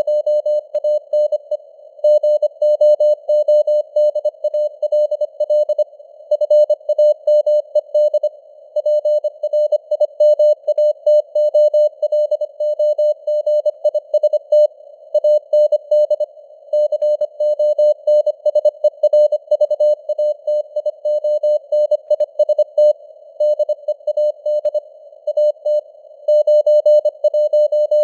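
Morse code (CW) sent at 25 words per minute: a single steady tone keyed rapidly on and off in dots and dashes, grouped into words with short gaps between them, over a narrow hiss of simulated radio noise.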